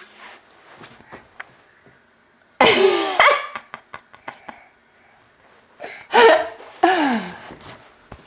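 A baby of about ten months calling out loudly twice in high-pitched squeals, the second sliding down in pitch at its end.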